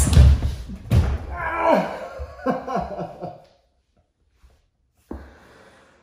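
A person falling onto a hardwood floor: a run of heavy thuds and bumps, followed by a voice letting out several falling groans or cries.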